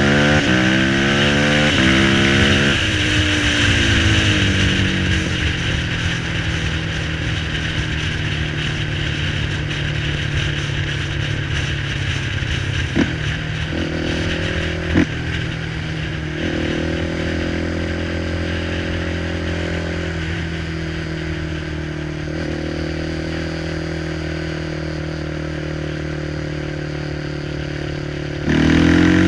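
Dinli 450 quad's single-cylinder four-stroke engine on the road, revving up and down through the first few seconds, then running at a steady speed for most of the time, with wind rushing past. Two sharp clicks come near the middle, and the engine revs up again near the end.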